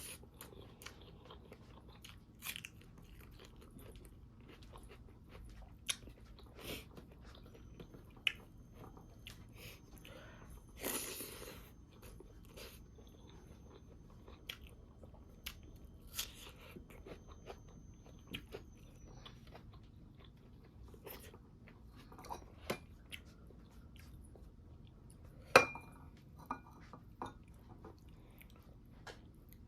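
Close-up chewing and crunching of pork with crunchy cartilage bones, with scattered soft mouth clicks and bites. Near the end, one sharp ringing clink stands out as the loudest sound.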